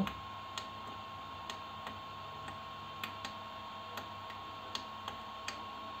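Anet A8 3D printer's LCD panel push buttons clicking as they are pressed to step through the menu, about ten presses at an uneven pace over a faint steady high whine. The buttons now respond, with the faulty LCD connector cable replaced.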